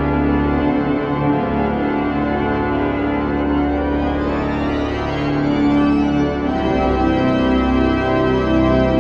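The Wanamaker Organ, a vast pipe organ, playing sustained full chords over deep pedal notes. The harmony and bass shift about seven seconds in.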